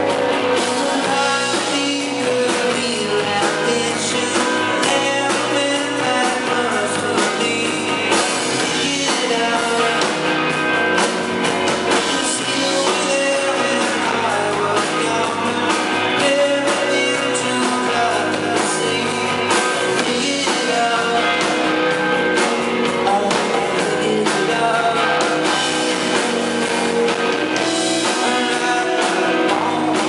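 Rock band playing live: electric guitars and a drum kit with a lead voice singing, heard from within the audience.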